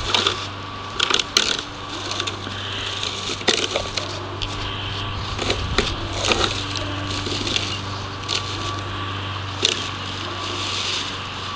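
Plastic leaf rake dragged through dry fallen leaves and grass: irregular crackling rustles and scrapes, over a steady low hum.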